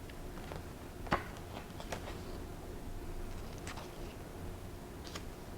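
A paper drawing diary being handled: four light clicks and taps over a low steady room hum, the loudest about a second in.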